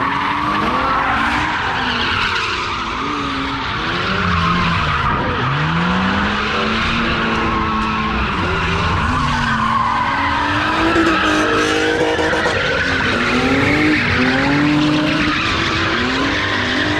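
Two BMW drift cars drifting in tandem on concrete. Their engines rev up and down over and over, under continuous tyre squeal.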